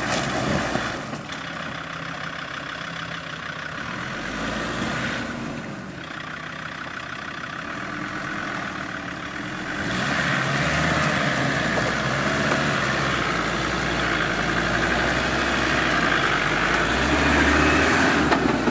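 Land Rover Discovery 2's engine working as the SUV crawls through a deep muddy rut. It grows louder from about halfway through as the vehicle comes up close.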